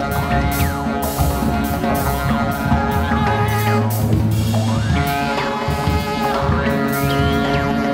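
Improvised music: a saxophone playing held notes and bending pitch glides over busy percussion hits, with a steady low tone in the middle.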